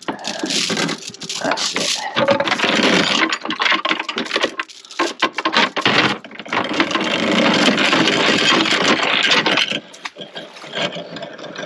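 Anchor chain rattling out of the anchor locker and over the boat's bow fitting as the anchor goes down. It starts with a few separate clanks, then runs almost without a break, pausing briefly near the middle, and drops away shortly before the end.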